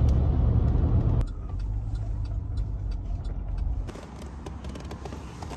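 Low road and engine rumble inside a moving car's cabin, cutting off suddenly about a second in. After that a quieter rumble with scattered light clicks, dropping again near the end to faint clicks and taps as a person gets out of the car.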